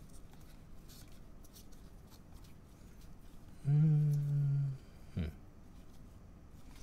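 Gloved hands flicking through a stack of Panini Donruss trading cards, faint papery ticks and slides. About four seconds in, a man hums a single steady 'mm' for about a second, the loudest sound, followed shortly by a brief low thump.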